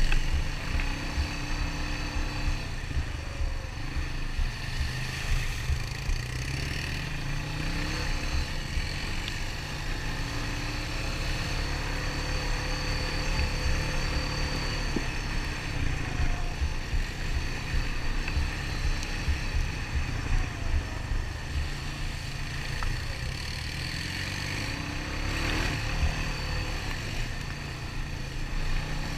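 Honda ATV engine running steadily while riding a trail, with small shifts in pitch and rough low rumble and buffeting on the microphone.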